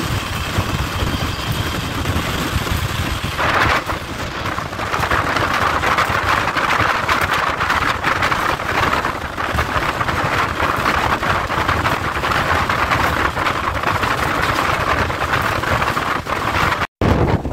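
Steady rush of wind and wheel-on-rail noise from a moving passenger train, heard at an open coach window. The noise grows a little louder about four seconds in and cuts out for a moment near the end.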